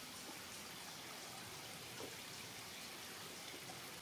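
Faint, steady trickle of a small, shallow creek: an even hiss of running water.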